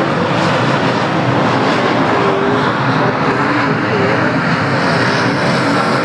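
Several dirt-track race cars running at speed around the oval, their engines merging into one loud, steady drone.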